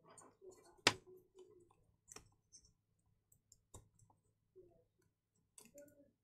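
Wago lever wire connectors clicking as their levers are snapped shut on the wires: one sharp click about a second in, then a few fainter clicks, with soft rustling of the cables between.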